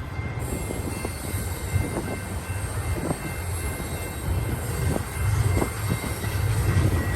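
Double-stack intermodal freight train rolling past: a steady low rumble of cars on the rails, with a few brief knocks from the wheels and couplers here and there.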